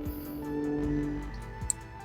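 Soft background music with held notes and a faint ticking beat.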